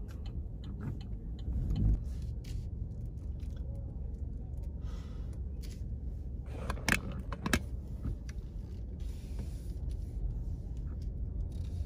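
Low, steady rumble of a 2020 Chevy Malibu LT heard from inside its cabin as it creeps along in a queue of cars, with two short clicks around the middle.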